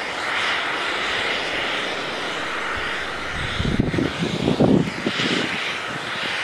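Steady hiss of a lance-type snowmaking gun blasting mist, with a stretch of low rumbling buffeting around the middle.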